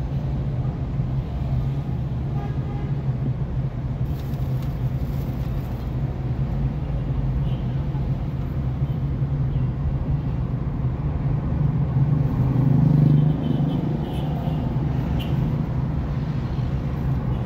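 Car driving along a city street: steady low drone of engine and road noise, swelling briefly for a second or so about twelve seconds in.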